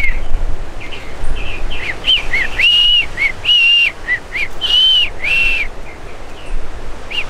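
Clear, high whistled notes in repeating phrases: a couple of short up-and-down notes followed by a longer held note, heard several times over a low rumble.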